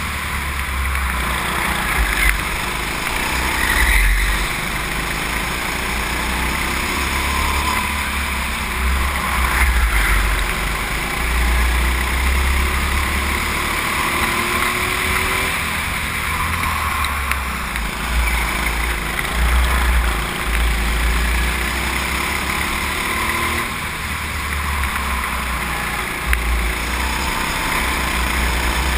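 Go-kart running at speed around a track, heard from a camera mounted on the kart, with a low rumble of wind buffeting the microphone that comes and goes.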